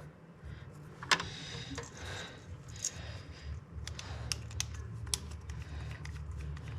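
Hands working wiring and plastic parts in a power panel, making many irregular light clicks and taps, with one sharper knock about a second in. A low steady hum runs underneath.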